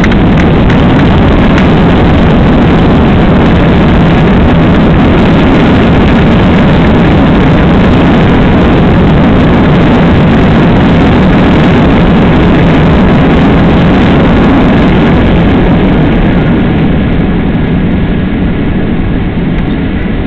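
Loud, steady roar inside the cabin of a Boeing 767 rolling out on the runway just after touchdown, with its engines and rushing air braking the jet. The roar eases off near the end as the airliner slows.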